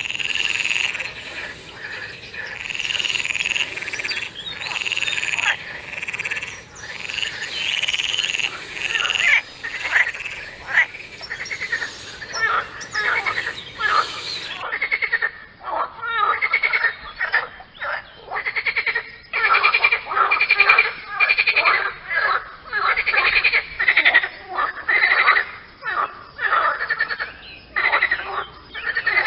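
Frogs croaking in a steady series of repeated pulsed calls, each under a second long. About halfway through, a second recording takes over with shorter, more closely packed calls.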